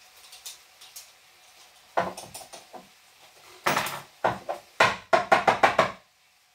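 A metal utensil knocking and clattering against a glass jar: a few separate knocks, then a quick run of sharp taps, about five a second, that stop suddenly near the end.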